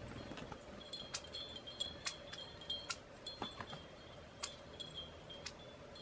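Wind chime clinking irregularly, a dozen or so light strikes, each ringing briefly on high notes.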